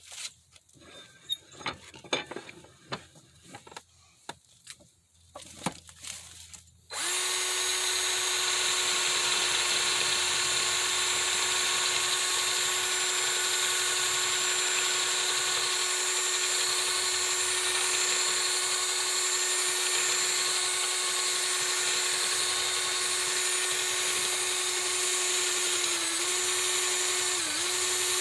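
A few light handling clicks, then about seven seconds in an electric drill starts and runs steadily at speed. It is spinning a screw-in soldering iron tip against sandpaper to dress off old solder and pitting, and its pitch dips briefly twice near the end as the tip is pressed on.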